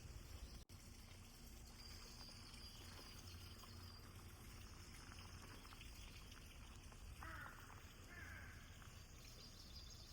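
Near silence: faint outdoor forest ambience with a low rumble, cut by a brief dropout near the start, and two short faint calls about seven and eight seconds in.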